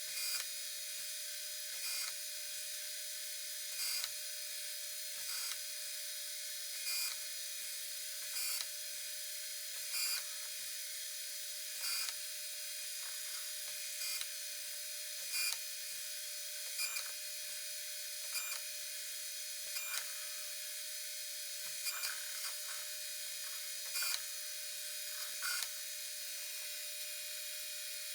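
Lathe running steadily while a cutting tool cuts a thread into copper stock, with a short louder scrape about every one and a half to two seconds.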